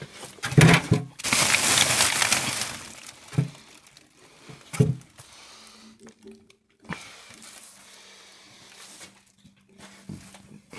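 Rustling and handling noise with a few sharp knocks, louder in the first three seconds, over a faint steady hum.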